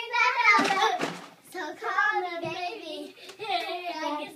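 Young girls singing a pop song unaccompanied, in a child's voice, with a short burst of noise about half a second in.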